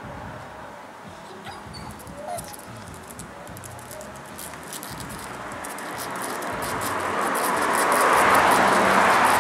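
Small shaggy dog whimpering a few times, short faint whines. From about halfway through, a broad whooshing rush of noise swells up and becomes the loudest sound.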